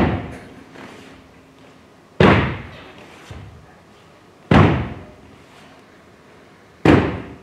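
Four loud, sharp thumps, evenly spaced about two and a quarter seconds apart, each with a short echoing tail.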